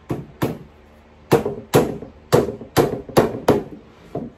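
Hammer driving small nails into the back panel of a particleboard shelf box: about nine sharp knocks, two, a short pause, then a steady run of six and one lighter blow near the end.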